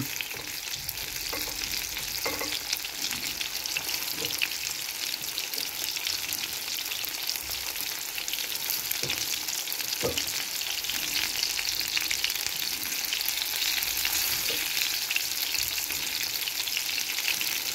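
Beef meatball patties sizzling steadily as they fry in oil in a pan, with a few light clicks of a knife against the meat and pan as they are cut.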